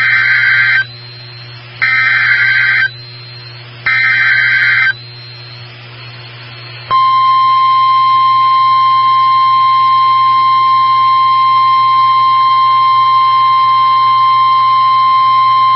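NOAA Weather Radio emergency alert played through a radio receiver. Three short buzzing SAME digital header bursts come about a second apart, then after a brief pause a steady 1050 Hz warning alarm tone sounds for about nine seconds. This is the signal that opens a new warning broadcast. A low hum from the reception runs underneath.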